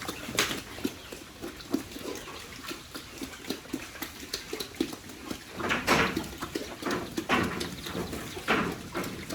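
Pigs grunting: a string of short, irregular sounds, with a few louder ones in the second half.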